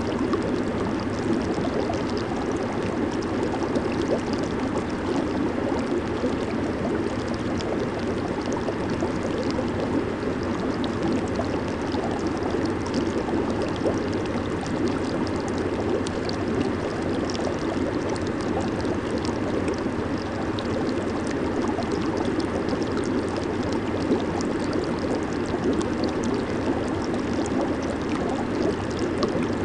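Hot tub jets bubbling and churning the water: a steady, even rush of bubbles with fine fizzing and popping on top.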